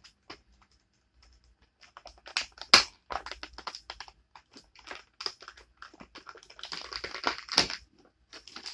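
Clear plastic blister pack being flexed and pried open by hand: a run of crackles and clicks, with a sharp crack a little under three seconds in and another near the end.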